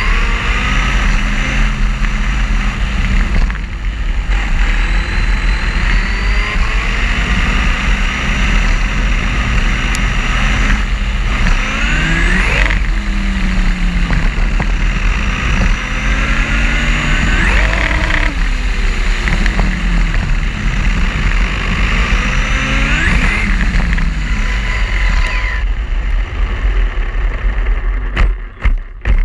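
Onboard sound of a Team Associated SC8e 1/8-scale electric RC truck driving fast, with a dense rush of wind and tyre noise on the onboard microphone. The electric motor and drivetrain whine climbs in pitch several times as the truck accelerates, then falls as it slows. Near the end the rush dies away as the truck stops, leaving a few short separate noises.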